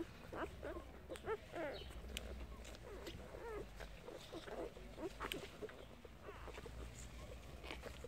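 Hours-old puppies squeaking and whimpering while nursing, in many short high squeals that rise and fall in pitch, several a second, with a few sharp clicks among them.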